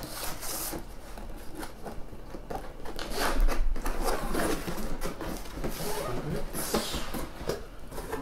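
Cardboard scraping and rubbing as a white cardboard product box is slid up out of a snug brown outer box, with small knocks and rustles of handling. It is loudest about three seconds in.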